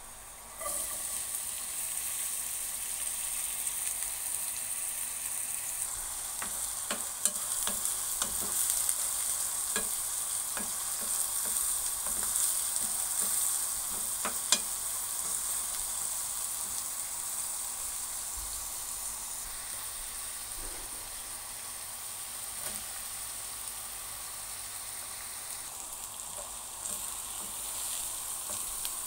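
Chopped red onion dropped into hot oil in a frying pan: a steady sizzle starts suddenly about half a second in and runs on. A spatula stirs through it, with scattered light clicks and scrapes against the pan.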